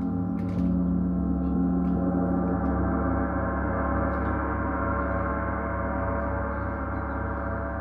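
34-inch Paiste Symphonic gong played with soft felt mallets: a dense, sustained wash of many overlapping tones that swells about half a second in, then slowly dies away.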